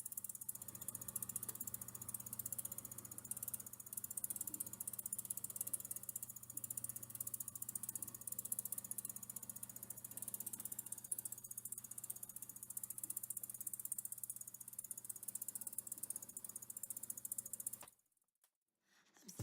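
Antec NEO ECO 520C ATX power supply unit making its abnormal noise: a rapid, even clicking buzz over a steady low hum, the clicking that had been growing louder with use. It cuts off suddenly about eighteen seconds in.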